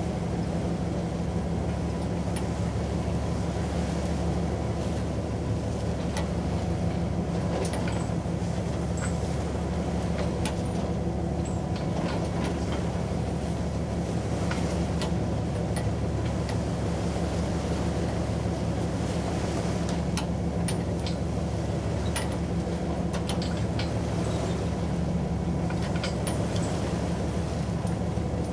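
Steady low drone of an icebreaker's engines working through sheet ice, with a few steady low hums, and many short sharp cracks and clicks scattered throughout.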